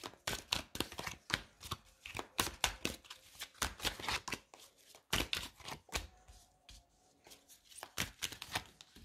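Tarot cards being shuffled by hand: an uneven run of quick slaps and flicks of card against card, easing off for a moment about two-thirds of the way through, then picking up again.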